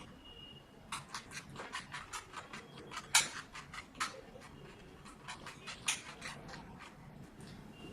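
Plastic 2x2 Rubik's cube being turned by hand: a fast, irregular run of clicks and clacks as its layers are twisted, the loudest clack about three seconds in, thinning out near the end as the cube is solved.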